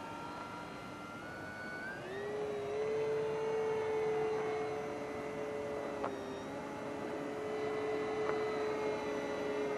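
Electric motor and propeller of an FMS Cessna 182 1500mm RC plane in flight: a steady whine that rises in pitch about two seconds in, then holds.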